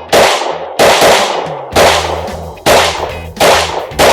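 Glock 19C Gen 4 9mm pistol with factory-ported barrel firing six shots at a steady pace, about one every three-quarters of a second, each a sharp crack with a ringing tail.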